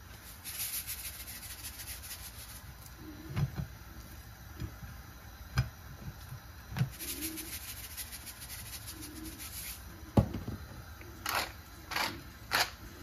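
Pepper mill grinding in two bursts, about two seconds and then about four seconds, with a few soft knocks between and sharp clicks near the end.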